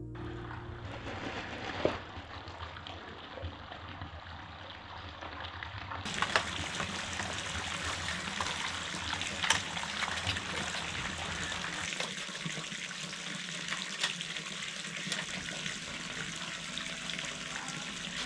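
Running water: a steady splashing hiss with scattered small clicks, its character shifting abruptly about six seconds in and again about twelve seconds in.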